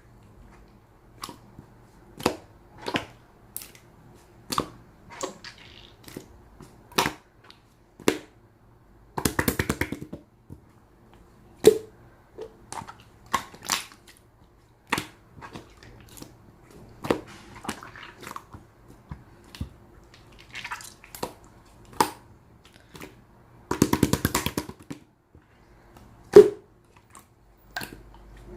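Brown slime being worked by hand, giving a string of sharp clicks and pops as it is pressed and folded, with two rapid crackling runs, about nine seconds in and again near twenty-four seconds.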